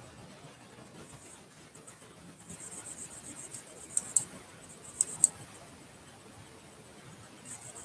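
Four sharp clicks in two quick pairs, about a second apart, over faint room hiss.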